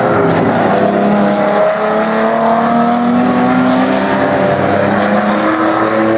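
V6 modified race cars' engines running hard on the oval, their pitch climbing slowly as they accelerate.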